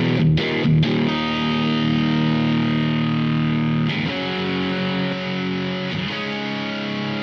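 Electric guitar played through a Mozztronics GD-1 Bone Breaker overdrive pedal on its Marshall Guvnor-style drive setting: two quick distorted strums, then full chords left to ring, changing chord twice.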